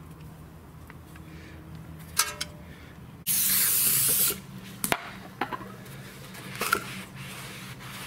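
Aerosol brake cleaner sprayed onto a new brake rotor in one loud hiss about a second long. A few small clicks come before and after it.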